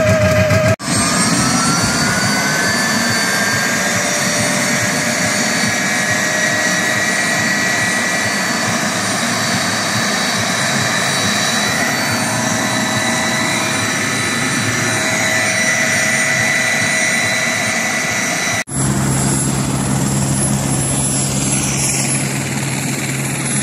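Aircraft turbine engine running on the ground: a high whine that rises in pitch over the first couple of seconds, then holds steady with several high whistling tones. Near the end it changes abruptly to a lower, steadier engine hum.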